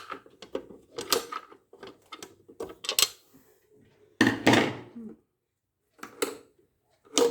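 Clicks and knocks of a rewireable fuse carrier being handled and pushed into a household main switch, with a louder, longer rattle about four seconds in.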